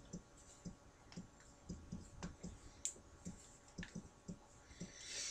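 Faint, irregular clicks and taps of plastic action-figure parts and packaging being handled, with a short soft hiss near the end.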